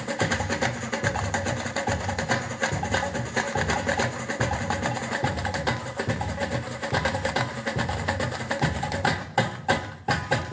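Fast drum solo on Arabic tabla (darbuka) blended with samba batucada percussion, with dense rapid strokes that open out into separate, evenly spaced beats about a second before the end.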